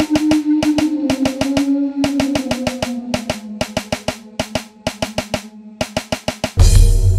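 Dark ambient dance music: a rapid, even run of drum hits over a held synth tone that slides up in pitch and later back down. Near the end, a heavy deep bass comes in and becomes the loudest part.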